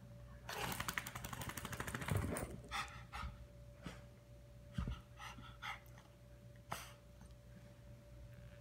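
A dog panting fast for about two seconds, then giving a series of short, attention-seeking whimpers.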